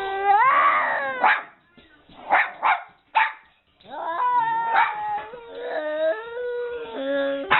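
Dog howling in long drawn-out notes that step up and down in pitch, broken by a few short yips about two to three seconds in.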